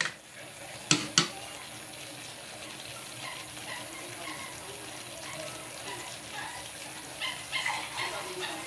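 Two quick clanks of a metal spatula against the wok about a second in, then a steady hiss of water added to the hot wok of stir-fried vegetables and seasoning.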